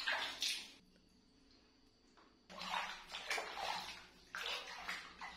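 Water splashing and sloshing in a plastic bathtub as a monkey moves its feet about in it, in three separate bursts.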